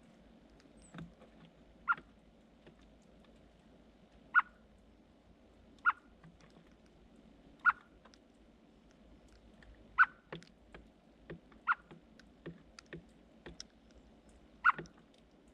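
Birds making short, sharp clicks, a loud one every one to two seconds with fainter ticks between.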